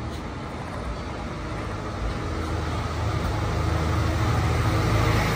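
Street traffic: a motor vehicle's engine hum, growing louder through the second half.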